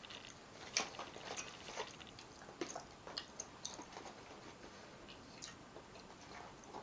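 Close-miked chewing of a White Castle double cheeseburger, with soft wet mouth clicks and smacks coming irregularly every half second or so.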